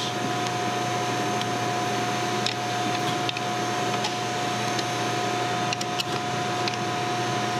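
Steady mechanical hum with a constant high tone, and a few faint clicks as an Allen wrench is worked on the Clark pump's bolts.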